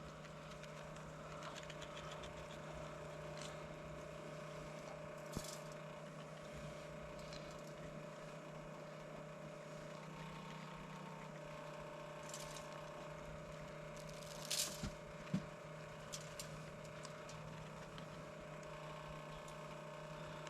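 Faint steady hum with a few soft taps and rattles: a few clicks, one at about 5 s and a short cluster around 15 s. The rub is being shaken from its container over the whole hog.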